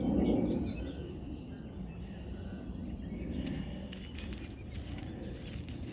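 Outdoor ambience on a walking trail: a steady low rumble, loudest at the very start, with faint bird chirps and a few light clicks.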